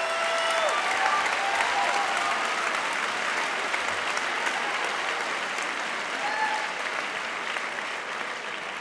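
Large audience applauding, strongest in the first couple of seconds and tapering off toward the end.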